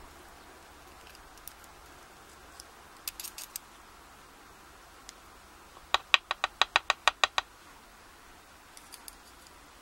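Small metallic clicks from steel tweezers and the brass lock core as pins are worked out of a padlock core. There are a few light clicks about three seconds in, then a quick, even run of about ten sharper, ringing clicks a little past the middle.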